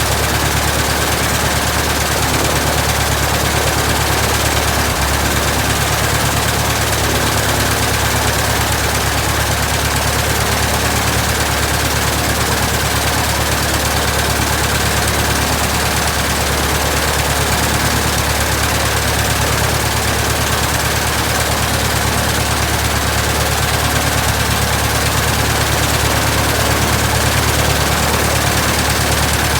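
1967 Citabria's four-cylinder Lycoming aircraft engine and propeller idling steadily at an even speed on its first run after restoration.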